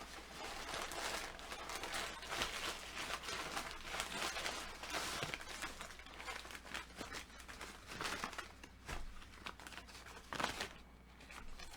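Fast-food packaging crinkling and rustling as it is handled and opened, with irregular crackles and a few tearing sounds, easing off near the end.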